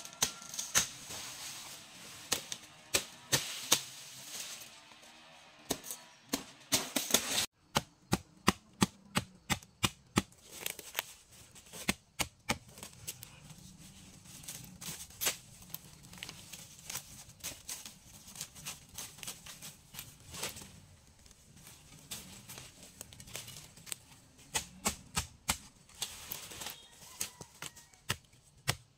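Leafy plants and stems being snapped and handled: sharp snaps and clicks in quick irregular runs, several a second, with a rustling hiss during the first several seconds.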